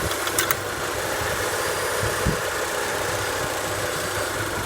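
Hyundai Sonata engine idling steadily with the F4A42 automatic gearbox in park. A short sharp click comes about half a second in and a brief low thump a little after two seconds.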